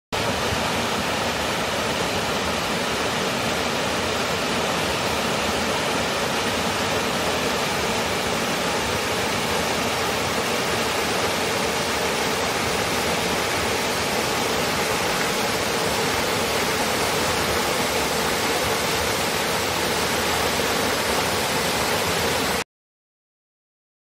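Mountain waterfall pouring into a rock pool: a steady, even rush of water that cuts off suddenly near the end.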